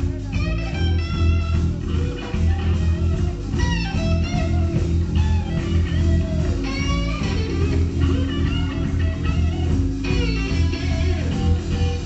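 Live blues band playing a boogie: electric guitars over bass and drums, with short lead phrases coming back every second or two.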